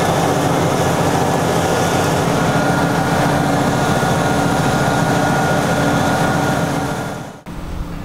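Valtra T214 tractor's six-cylinder diesel engine running steadily under load, heard from inside the cab, with a thin steady whine joining a couple of seconds in. The sound fades away near the end.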